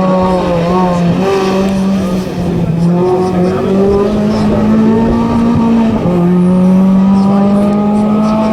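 Touring race car engine at full throttle, held at high revs, with the pitch stepping abruptly at gear changes about a second in and again about six seconds in.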